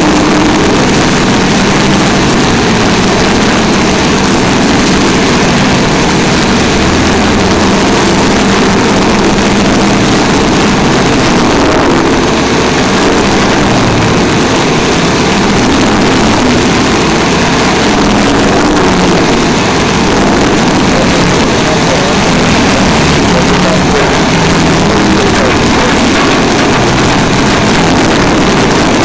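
Vermeer TG7000 tub grinder running under load, its engine and hammermill grinding logs and wood waste with a loud, steady mechanical din.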